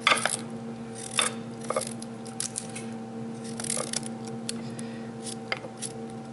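A small knife cutting through a raw broccoli stem held in the hand, giving irregular short crisp snaps and crunches, with the cut pieces falling onto the broccoli in the casserole dish.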